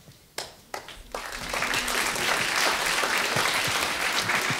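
Audience applause: a few single claps, then many hands join in about a second in and the clapping holds steady.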